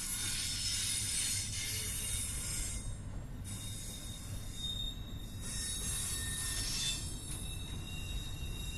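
Intermodal freight train rolling slowly: steel wheels squeal against the rails in high, sustained tones over a steady low rumble.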